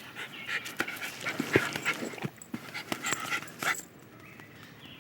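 A dog panting in quick breathy bursts, with small clicks mixed in; it stops about four seconds in.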